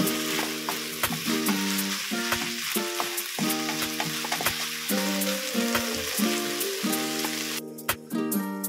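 Diced chicken breast and carrot sizzling in oil in a frying pan while being stirred with a wooden spatula, which clicks and scrapes against the pan. The sizzle cuts off near the end.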